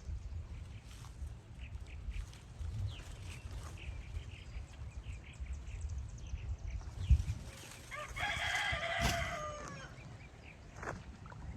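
A rooster crowing once, about eight seconds in, for about a second and a half, its pitch dropping at the end. Under it run low rustling and knocks, with one sharp knock just before the crow.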